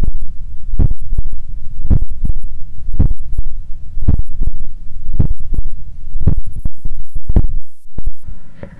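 Heartbeat heard through a stethoscope on the apex of the heart, with the listener lying on the left side: loud, slow lub-dub pairs a little under one a second. The beat drops out briefly near the end, followed by a short rustle.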